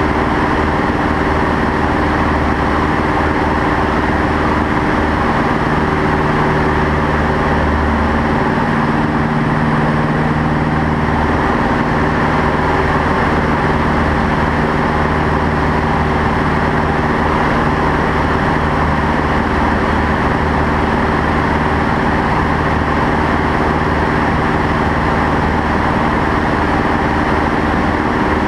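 Light aircraft's piston engine and propeller droning steadily at cruise power, about 2300 rpm, heard from inside the cockpit, with a steady hiss over the engine tones.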